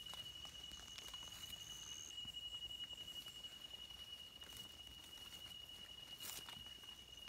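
A night insect trilling steadily on one high note, with a second, higher trill joining briefly about a second and a half in. Over it come soft rustles and clicks of dry leaf litter as mushrooms are cut and handled, the loudest rustle about six seconds in.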